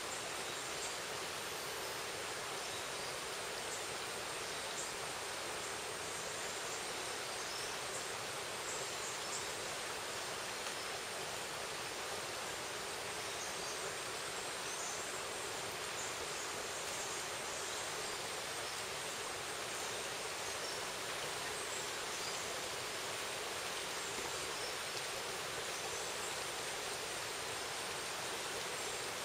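Steady, even hiss of water.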